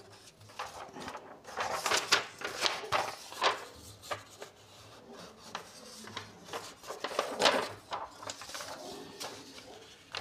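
Paper rustling and scraping as a printed question paper is handled and turned over a pad of answer sheets: a string of short rustles, loudest about seven and a half seconds in.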